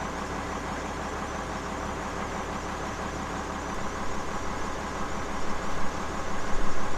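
Case IH 7120 tractor's diesel engine running steadily, growing a little louder and more uneven in the second half.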